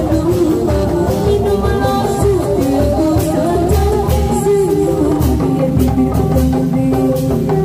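A woman singing through a microphone and loudspeakers over amplified music with a steady drum beat.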